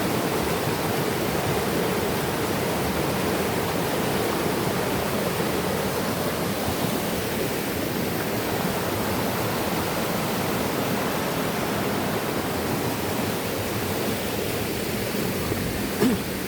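Steady rush of flowing river water tumbling over rocks, with a single short thump near the end.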